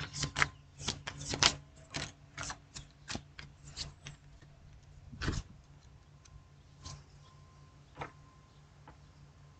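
A deck of tarot cards being shuffled by hand: a quick run of sharp card clicks and slaps for the first few seconds, thinning out to occasional single clicks.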